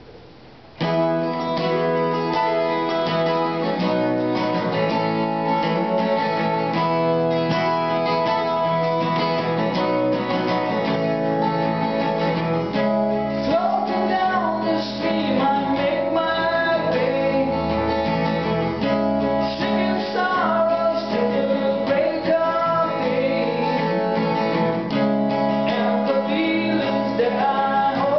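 Steel-string acoustic guitar strummed in a steady chord rhythm, starting suddenly about a second in; a wavering, bending melody line joins on top about halfway through.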